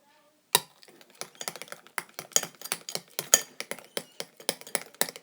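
A spoon stirring a thickening detergent-and-baking-soda slime mixture in a bowl, clicking and tapping against the bowl in a quick, uneven run that starts about half a second in.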